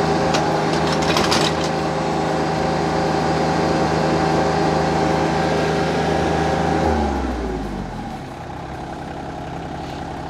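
Compact tractor's diesel engine at raised throttle, turning a PTO post hole auger grinding into hard, dry clay, with a few sharp knocks about a second in. About seven seconds in the engine and driveline wind down in pitch and settle to a quieter, lower idle.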